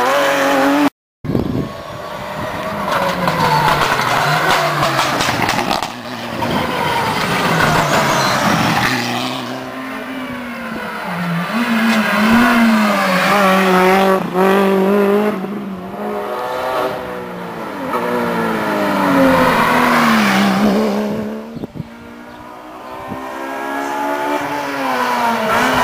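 Rally car engines revving hard on a closed special stage, the engine note repeatedly climbing and dropping back as the cars accelerate through the gears and brake. The sound cuts out briefly about a second in.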